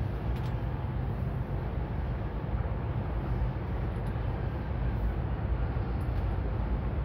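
Steady low rumble with a hiss over it, unbroken throughout, and a few very faint ticks.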